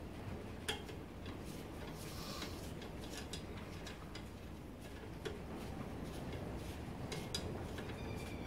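Scattered light metallic clicks and ticks, irregular and about a second or two apart, of steel spokes being fed through the hub flange and rim holes of a motorcycle wheel.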